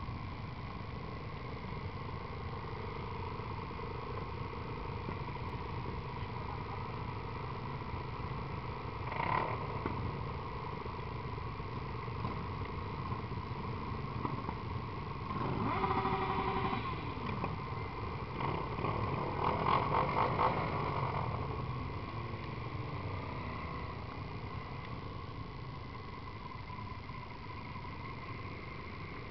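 Many motorcycle engines running together in a slow-moving pack, a steady low rumble. About halfway through there is a short sustained tone, followed by a louder burst of engine noise and a falling rev.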